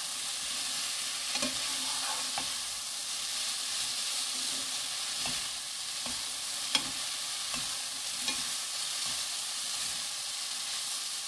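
Shredded bellflower root (doraji) sizzling as it is stir-fried in a pan, tossed with two wooden spatulas that scrape and knock against the pan now and then. One sharper knock comes a little past halfway.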